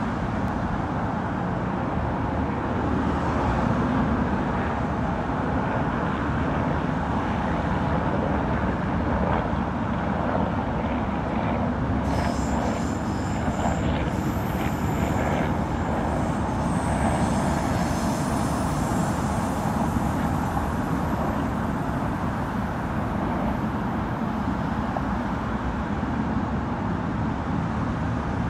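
Steady traffic noise from a busy multi-lane expressway: a continuous rush of cars and trucks passing on the road surface. For several seconds in the middle, a higher whine rises out of the traffic and then fades.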